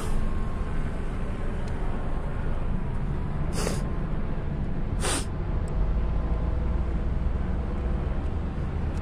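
Steady low rumble of vehicle traffic, with two short hisses about three and a half and five seconds in.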